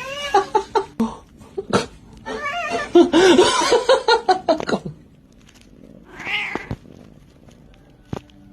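A domestic cat meowing and yowling in drawn-out calls. The loudest, longest stretch comes in the middle, and a shorter call follows about six seconds in.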